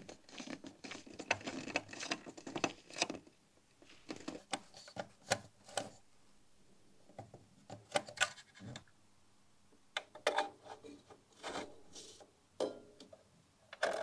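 Light metal clicks and scratches, in irregular bunches, as pliers and fingers work a small nut onto a tube shield base bolt under a tube socket inside an aluminium amplifier chassis.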